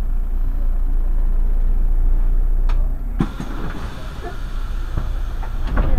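Irisbus Crossway LE city bus running on the road with a steady low rumble. A few sharp knocks and rattles come about halfway through and again near the end.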